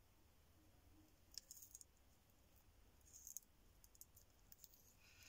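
Horsefield tortoise biting and chewing dandelion leaves, heard as faint, crisp clicks and crunches from its beak tearing the leaf, in short clusters about one and a half and three seconds in.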